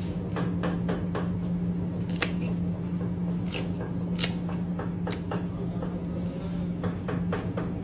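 Shears snipping through lionfish fin spines: a dozen or so short, sharp clicks and crunches at irregular intervals, over a steady low hum.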